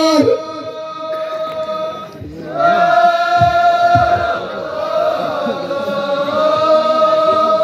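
Ahwach troupe chorus chanting in unison on long held notes. The phrase breaks off briefly about two seconds in, and the chorus picks up again with a new held line.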